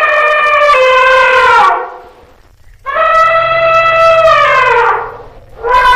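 Elephant trumpeting: three long calls, each about two seconds, the pitch dropping at the end of each. One ends about two seconds in, one runs from about three to five seconds, and a third starts near the end.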